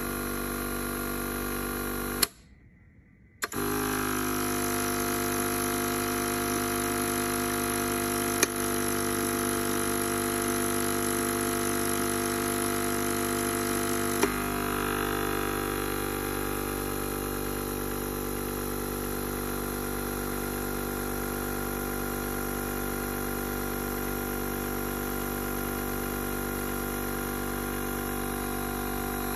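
Arid Bilge drying system's newly replaced compressor motor running with a steady hum of several tones. Sharp clicks about 8 and 14 seconds in come as the solenoid valves switch, and the hum's tone shifts after the second. About two seconds in, a click is followed by a second in which the sound cuts out before the hum returns.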